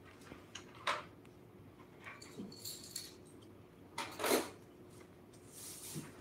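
Quiet reading-room ambience: a faint steady hum with scattered small clicks and knocks, and a louder scuffing noise about four seconds in.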